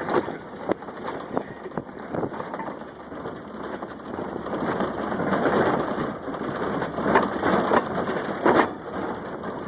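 A fridge door used as a sled, sliding along with a steady rushing scrape and scattered knocks and bumps, swelling louder in the middle.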